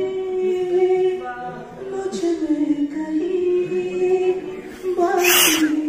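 A man singing unaccompanied into a microphone, holding long notes that step up and down in pitch. A brief, loud burst of noise cuts in about five seconds in.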